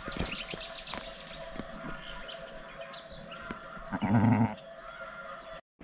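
A sheep bleats once, a short low call about four seconds in.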